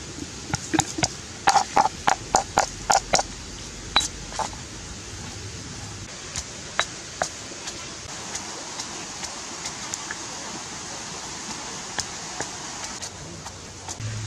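Stone pestle pounding chillies in a stone mortar: a quick run of knocks, about four a second, for the first few seconds, then only occasional lighter clicks over a steady hiss.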